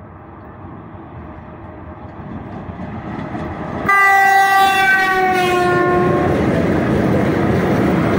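A 3ES5K 'Ermak' electric freight locomotive approaches, its running noise growing louder. About four seconds in it sounds its horn: a single blast of about two seconds whose pitch drops as the locomotive passes. The loud running noise of the locomotive and its container wagons rolling by follows.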